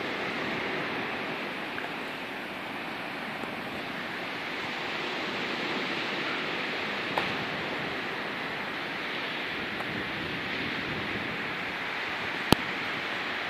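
Steady rush of sea surf washing on a stony shore. A single sharp click about a second before the end.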